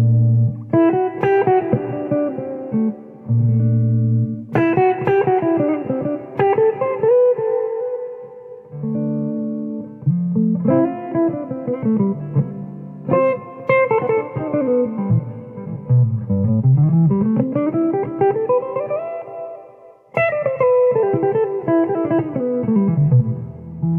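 Electric guitar played solo: picked melodic phrases over deep held bass notes. In the middle a line of notes glides down in pitch and then back up.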